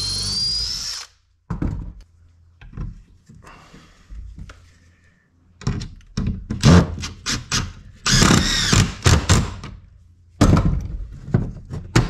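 Cordless drill running in two short bursts, about a second each: one at the start, rising in pitch, and one about eight seconds in. It is drilling and driving screws into the corner joint of a wooden cabinet panel. Between the bursts there are clicks and knocks of a crank clamp and tools being handled on the bench.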